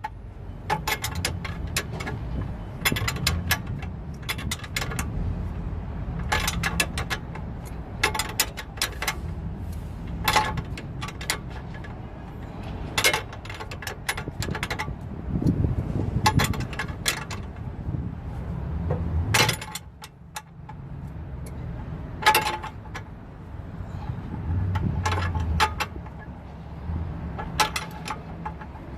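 Hand socket wrench and metal suspension parts clinking: clusters of sharp metallic clicks every second or two as a stubborn nut is worked by hand with a long socket, over a steady low rumble.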